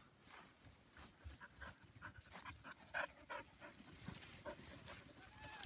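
Puppies panting faintly in short, uneven breaths, loudest about three seconds in, with a brief faint whine near the end.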